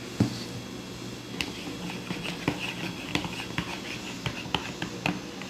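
A spoon stirring a thick toothpaste-and-soap mixture with added water, clicking and tapping against its container at uneven intervals.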